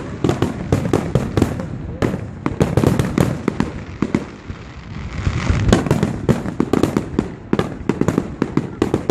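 Fireworks display: a dense run of bangs and crackles, many a second, with a brief lull about four seconds in before the barrage picks up again.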